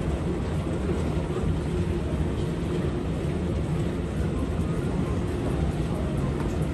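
Steady low rumble and hum of an airport moving walkway running.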